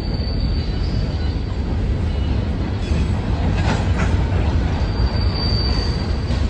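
A train rolling by on the rails with a steady heavy rumble. A thin, high wheel squeal rises over it at the start and again about five seconds in.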